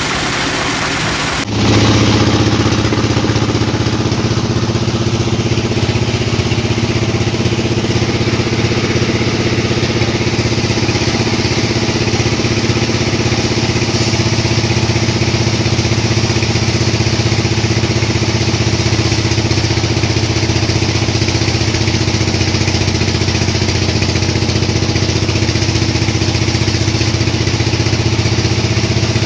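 Sawmill machinery running steadily, a constant engine-like hum that holds one low pitch. It changes abruptly about a second and a half in, then runs on unchanged.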